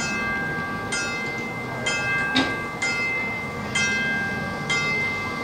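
Marching band playing: brass chords attacked about once a second and held briefly, with a sharp percussion hit about midway.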